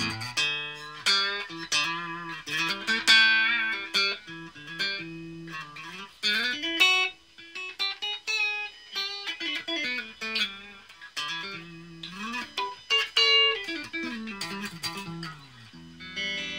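Electric guitar played through a Raizin 'Vintage Champ Box' effects pedal: melodic single-note phrases, picked, with notes sliding up and down between pitches.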